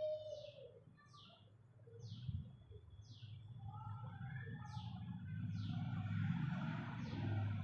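A bird calling over and over in short, high, falling notes, about one a second. Under it, a low rumble builds from about halfway through.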